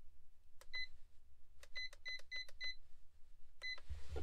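Plug-in digital thermostat controller beeping at each button press while the temperature is set: seven short, high beeps, a quick run of five in the middle. A soft handling bump comes at the end.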